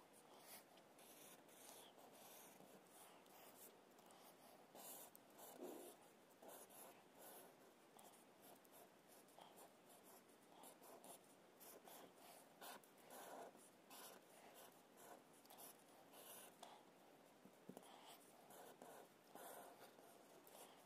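Black felt-tip marker drawing on paper: faint, irregular strokes, each a fraction of a second long.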